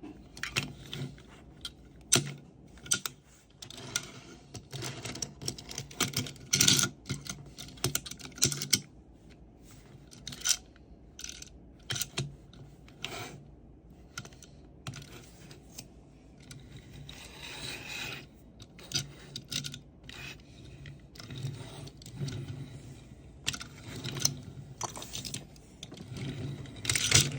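Irregular clicks, taps and scraping of small hard plastic and metal parts being handled while a 1:64 diecast toy car is unboxed from its packaging, with a longer rustle about two thirds of the way through.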